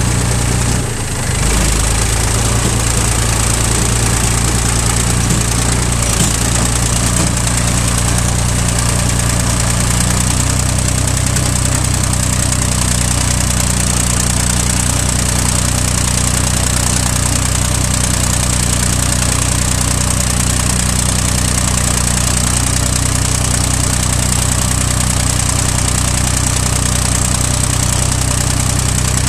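An old farm tractor's engine running steadily as the tractor drives along, heard close up from the seat. There is a brief dip in level about a second in, then an even engine note to the end.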